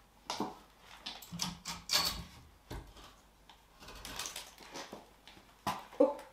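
Wooden boards being handled and lifted off a stone wall: an irregular run of wooden knocks and scrapes, with the two loudest knocks close together near the end.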